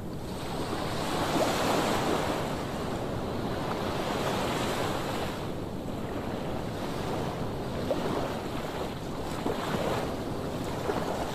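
Sea waves breaking and washing up the shore, the surf swelling and easing every few seconds, with wind blowing across the microphone.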